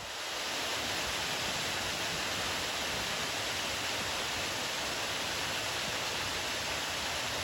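Waterfall, a steady, even rush of falling water that fades in at the start.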